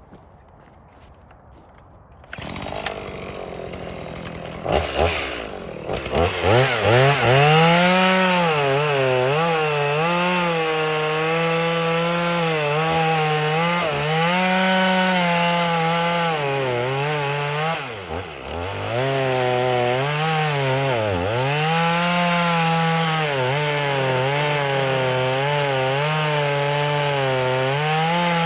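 Stihl MS 180 two-stroke chainsaw running and cutting firewood. The engine revs up about six seconds in, then its pitch sags and recovers again and again as the chain loads up in the wood, dropping deeply twice in the second half.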